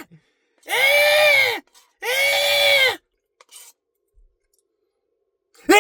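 Two drawn-out, high-pitched wordless moans from a man's voice, each about a second long, rising then falling in pitch; a couple of faint clicks follow.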